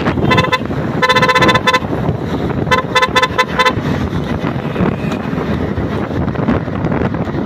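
A vehicle horn honking: a short beep, a longer blast about a second in, then a quick run of about six short beeps around three seconds in, over steady wind rush and road noise from riding.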